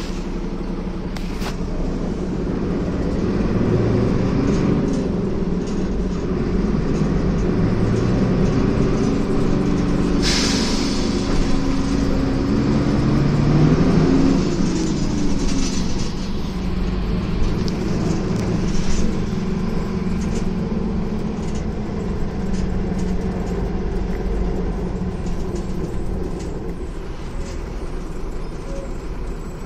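Ikarus E94.53 bus heard from inside the passenger cabin while driving. The diesel engine's note climbs in steps as the bus accelerates, then drops back. A short hiss of compressed air comes about a third of the way in.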